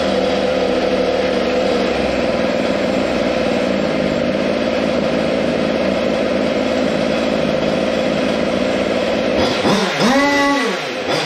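Small two-stroke Zenoah G300PUM engine of a water-cooled Goped Sport running steadily on a newly fitted WT-668 carburetor being tuned. About nine seconds in the throttle is blipped: the revs rise sharply and fall back, and rise again at the very end.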